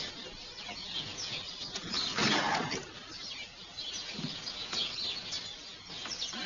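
Birds chirping in short repeated calls, with a brief rustling noise about two seconds in.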